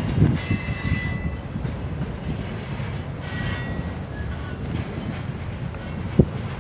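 Autorack and intermodal freight cars rolling slowly past, a steady low rumble of wheels on rail. High wheel squeal sounds briefly twice, and a single sharp knock comes near the end.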